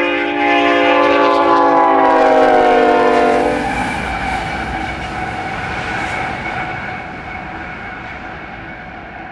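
Union Pacific diesel locomotives passing close, the lead unit blowing a long, loud multi-tone air horn blast whose pitch sags slightly as it goes by; the horn cuts off a little over three seconds in. The rumble of engines and wheels on rail then fades as the locomotives pull away.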